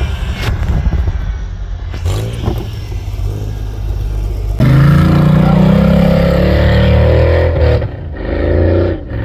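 An off-road truck's engine runs as it ploughs through deep snow. About halfway through this gives way suddenly to a V8-swapped 4x4's engine revving hard and held at steady high revs for about three seconds as it climbs a snow slope, then revving again briefly near the end.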